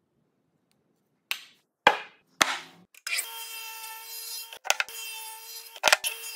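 Three sharp wooden knocks about half a second apart, then a King radial arm saw running with a steady whine as its blade cuts a lap into a block of wood, interrupted by brief clicks twice.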